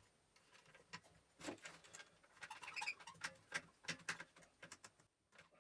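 Faint, irregular clicks and light knocks of hand work on a vacuum cleaner motor, as wooden blocks are clamped around its armature.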